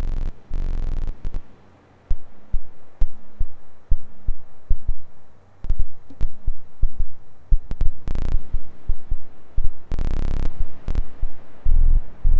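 SOMA Lyra-8 drone synthesizer playing low, throbbing pulses at an uneven rate, with clicks. An oscillator pair is being modulated by its Hyper-LFO in multiply mode with sync off. Several short loud blasts of hiss cut through, the longest about ten seconds in.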